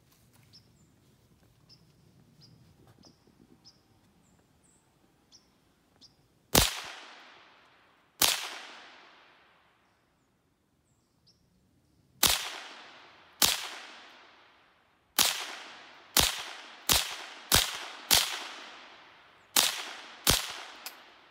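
Ruger 10/22 semi-automatic .22 LR rifle firing about eleven shots. They start about six seconds in and come roughly one to two seconds apart, each a sharp crack with an echo tailing off behind it. Faint bird chirps come before the first shot.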